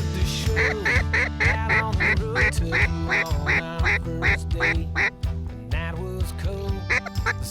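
A rapid series of duck quacks, about four a second, slowing slightly and stopping about five seconds in, with two more near the end, over background music.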